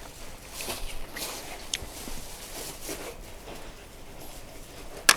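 Light rustling and scattered small clicks from things being handled, with one sharp click near the end.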